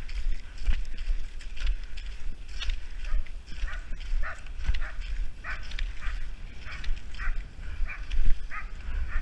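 A dog yipping in short, repeated calls, about two a second, over a low rumble.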